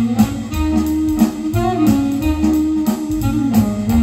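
Instrumental music with guitar over a repeating bass line, played back through custom-made bookshelf speakers driven by an O&B SS2150 class AB power amplifier.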